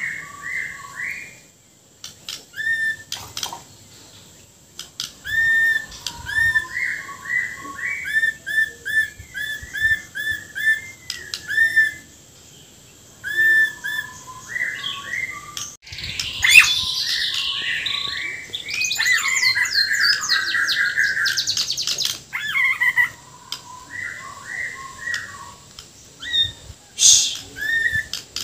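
Murai Borneo (white-crowned shama) singing hard: phrases of repeated clear whistled notes with short pauses between, and a louder, harsher rapid rattling passage about halfway through.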